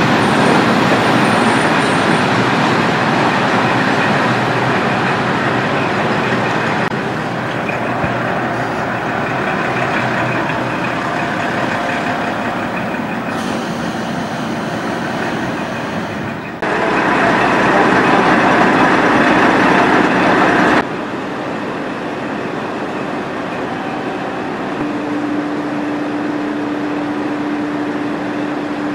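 Onboard running sound of a KiHa 40 diesel railcar with its original DMF15HSA engine: engine drone and wheel-on-rail noise. The sound jumps abruptly louder for about four seconds past the middle, drops back, and a steady low hum comes in near the end.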